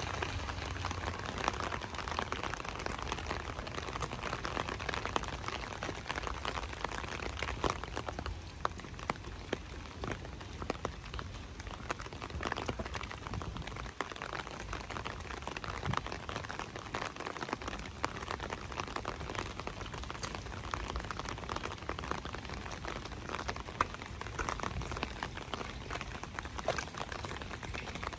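Light rain falling, an even patter dotted with many small, sharp drop ticks.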